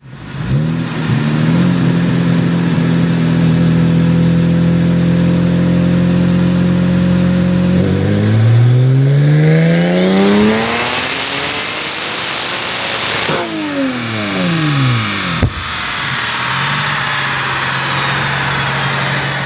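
Turbocharged Toyota 2GR V6 in an MR2 during a dyno pull. It holds steady revs, then the revs rise for about five seconds under full throttle with a loud rush of noise near the top. The revs then fall back, with a single sharp snap, and the engine settles to a steady run.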